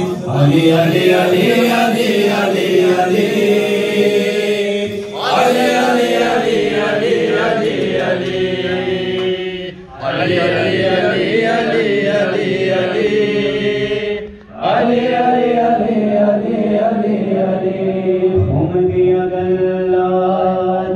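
A solo male voice chanting a manqabat, a devotional praise song to Imam Ali, into a microphone, with long held and wavering notes. The singing breaks off briefly three times, about five, ten and fourteen seconds in.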